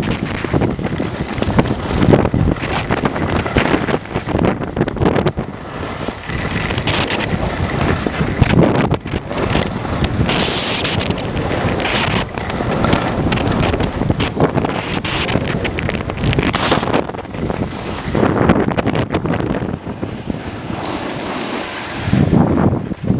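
Wind buffeting the microphone of a skier's camera on a fast downhill run, mixed with skis scraping over firm, chopped-up snow. The noise surges and eases over and over.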